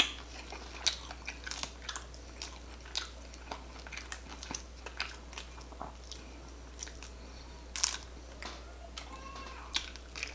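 Close-up eating of jumbo shrimp in chili garlic butter sauce: irregular biting and wet chewing with sharp mouth clicks and smacks, one louder about eight seconds in.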